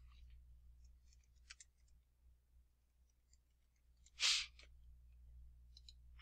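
Quiet headset-microphone room tone with a low hum and a few faint ticks, broken by one short hiss about four seconds in.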